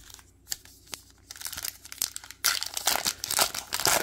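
A baseball card pack's paper wrapper being torn open and crinkled in the hands. A few light ticks come first, then the crinkling builds and is loudest over the last second and a half.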